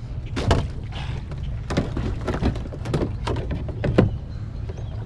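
Irregular knocks and thumps of gear being handled on a plastic kayak while its folding seat is set in place, the loudest knock about four seconds in, over a steady low rumble.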